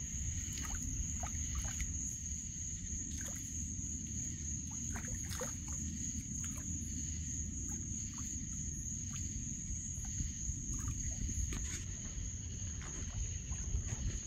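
Outdoor night ambience: a steady, high-pitched whine at one unchanging pitch over a constant low rumble, with scattered small clicks and ticks.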